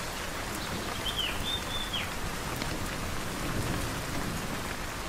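Steady rain falling on leaves, with a short whistled bird call about a second in.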